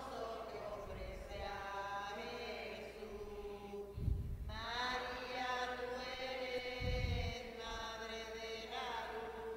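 A hymn sung in long held notes over a steady accompaniment: the closing hymn after the dismissal at Mass. There are two low thumps, about four and seven seconds in.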